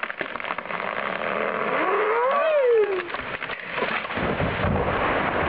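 A large tree breaking off its stump and falling: sharp cracks of wood, a tone that rises then falls midway, then a low heavy thud and rumble as the trunk hits the ground about four seconds in.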